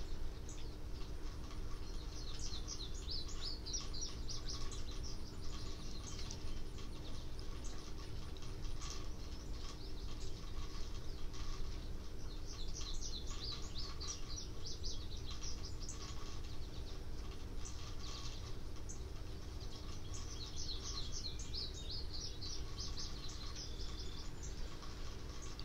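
Songbird singing three bouts of rapid, high chirping, a few seconds each: about two seconds in, in the middle, and near the end. Underneath is a steady low background noise with a faint constant hum.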